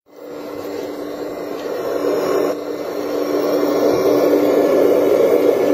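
Remote-controlled model excavator's motors running with a steady whine as the boom and bucket are raised, fading in at the start.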